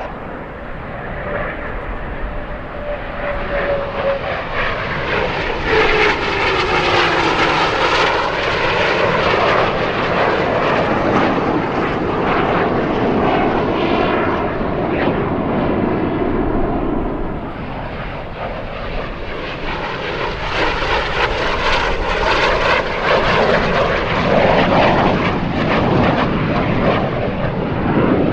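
CT-114 Tutor jets, single-engine turbojet trainers, passing in a display flyby. The jet noise swells twice with a sweeping, phasing whoosh as the aircraft go by.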